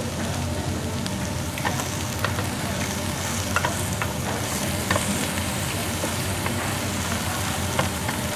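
Pork belly sizzling steadily on a Korean barbecue grill plate over a steady low hum. Metal tongs and chopsticks click sharply against the plate now and then.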